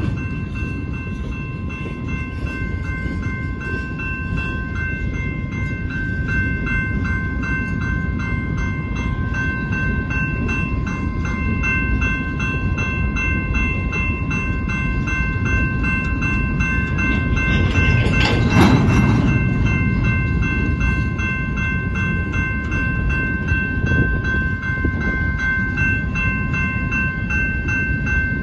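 Loaded freight cars of a rock train rolling past at a grade crossing: a steady rumble and clatter of wheels on rail, with the crossing's warning bell ringing rapidly over it. A louder rattle comes about eighteen seconds in.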